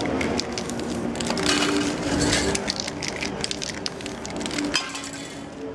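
Paper crackling and crinkling as a spray-paint artist handles a sheet over the wet painting, with many small crackles and a short hiss from the spray can in the middle.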